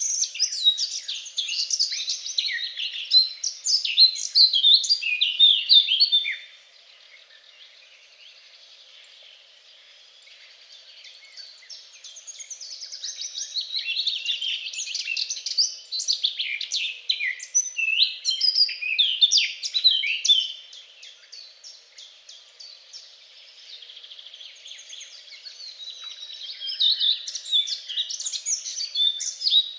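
Songbirds singing, with quick overlapping chirps and trills. Twice the singing thins to a few faint calls for several seconds, then picks up again.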